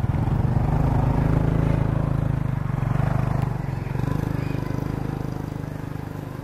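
Motor vehicle engine running with a steady low, pulsing rumble, loudest in the first couple of seconds and slowly fading.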